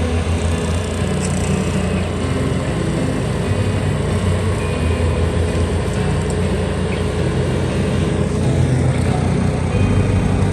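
A vehicle engine running steadily, mixed with background music that has a stepping bass line.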